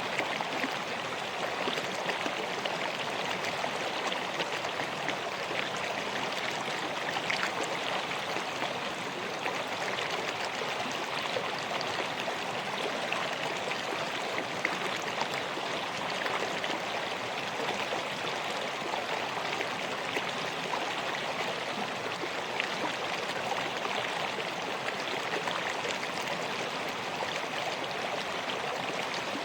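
River flowing: a steady rush of water with fine splashing and trickling throughout.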